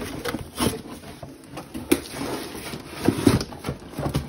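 Cardboard box and packaging being handled: rustling, with several sharp knocks and taps as parts are moved and lifted out.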